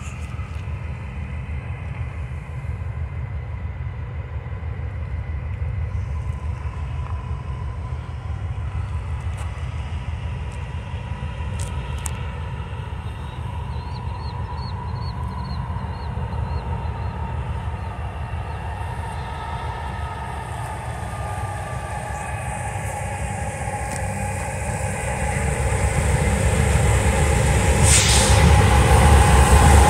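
BNSF diesel freight locomotives approaching, a low engine rumble that grows steadily louder and is loudest near the end as the lead units draw alongside.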